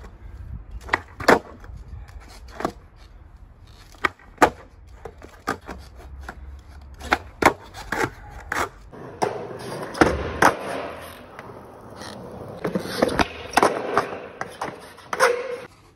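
Skateboard tricks on concrete and paving: repeated sharp clacks of the deck and wheels striking the ground as the board is popped and landed, with rolling wheel rumble in between.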